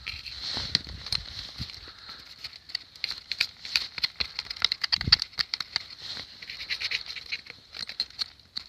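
Chainsaw being cleaned by hand: many quick scraping clicks and light knocks as caked sawdust and old chain oil are scraped off, with a steady high hiss behind.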